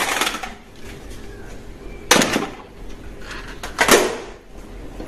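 A few sharp knocks and clacks of hard objects being handled, with the louder ones at the start, about two seconds in, and just before four seconds.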